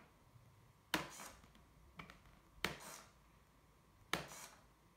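Four sharp clicks of the servo toggle being pressed, each followed by a brief whir as a small hobby servo swings in response almost at once.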